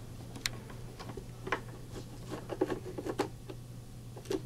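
Scattered light clicks and taps of a portable record player's plastic case being handled and pried at during disassembly, over a steady low hum.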